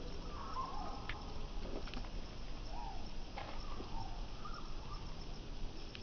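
Outdoor ambience: a steady hiss and low rumble with a few short chirping calls scattered through, and an occasional faint click.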